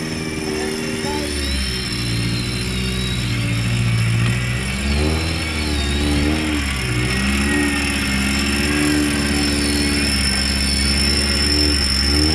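Off-road 4x4 engine running under load, its revs rising and falling again and again, with a faint high whine that glides up and down.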